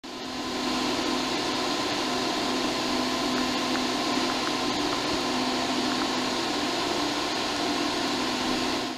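Steady whir of cooling fans and air handling in a TV broadcast control room, with a constant electrical hum.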